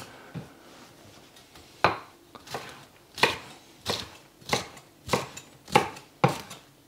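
Kitchen knife chopping fresh chillies on a cutting board: about nine separate, unhurried strikes, each a sharp knock on the board.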